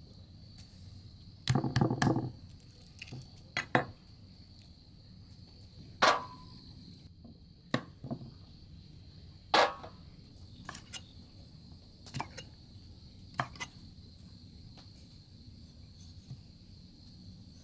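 Irregular knocks and clatter of objects being handled, a quick run of them about two seconds in and then single hits every second or two, one ringing briefly. Under them runs a steady high-pitched insect drone.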